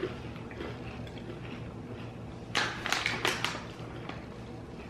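Plastic resealable snack pouch crinkling in a quick cluster of sharp rustles about two and a half seconds in, as a hand opens it and reaches inside.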